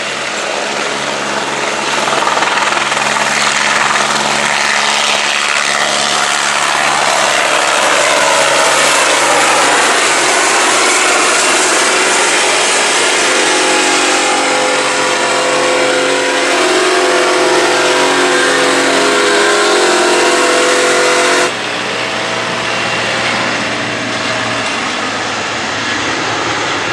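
Helibrás AS-350 B3 Esquilo helicopter running loud and close, a steady turbine whine with rotor noise, the whine rising in pitch over the middle stretch. About three-quarters of the way through the sound cuts suddenly to a quieter, lower engine drone.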